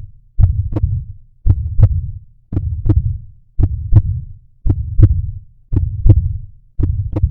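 Heartbeat audio, a steady lub-dub repeating a little under once a second, each beat a pair of low thumps.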